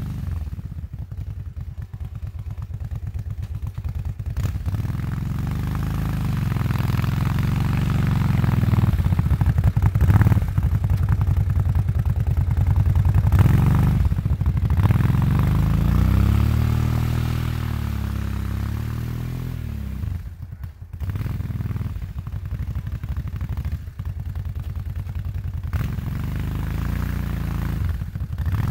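Kawasaki Brute Force 750 ATV's V-twin engine revving up and down as the quad works its plow through packed snow. It is loudest about halfway through as it backs in close, with a brief drop in engine sound about two-thirds of the way through.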